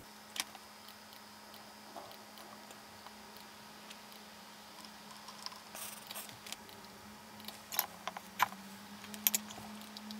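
Scattered soft clicks of laptop keys and a computer mouse, a few of them a little louder near the end, over a faint steady hum.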